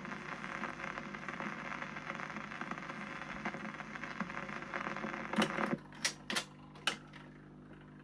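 Surface noise from a 78rpm shellac record being played, a steady crackly hiss, then a few sharp clicks a little past halfway, with only a faint steady hum from the player afterwards.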